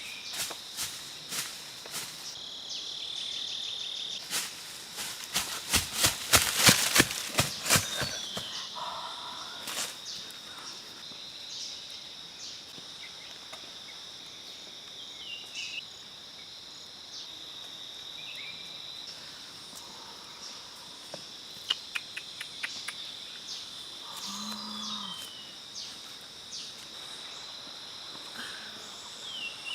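Forest ambience: a steady high insect drone with scattered short chirps, and a flurry of sharp knocks and rustles over the first eight seconds or so, loudest just before the middle of that run.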